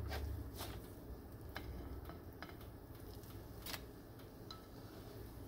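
Faint, irregular light clicks and ticks of a plastic slotted spatula working scrambled eggs in a nonstick frying pan, about seven in a few seconds, over a low steady hum.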